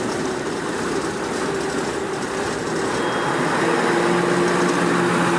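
A steady rushing machine noise with a faint hum underneath, growing slightly louder.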